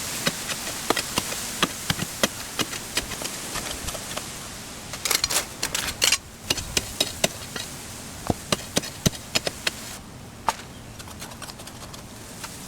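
Stones clicking and knocking irregularly while digging by hand in stony, sandy ground, over a steady high hiss. A denser flurry of louder knocks comes about five to six seconds in.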